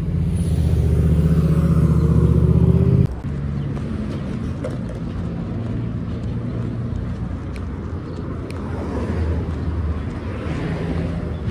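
Street traffic: a motor vehicle's engine running close by with a deep, steady hum that cuts off suddenly about three seconds in, leaving a steadier background of passing traffic.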